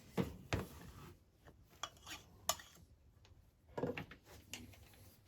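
Scattered light clinks and knocks of a cup and utensil being handled with the melted plastisol: two near the start, a few around the middle and a cluster near the end.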